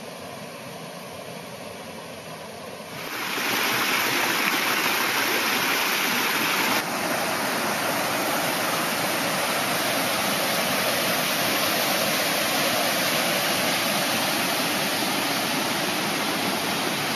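Water rushing over rock: a stream and small waterfalls cascading down rock ledges, a steady rush that grows clearly louder about three seconds in.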